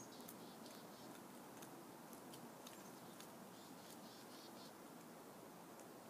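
Faint, high-pitched calls of a chickadee: short chirping notes in quick clusters of several, with a few sharp ticks between them.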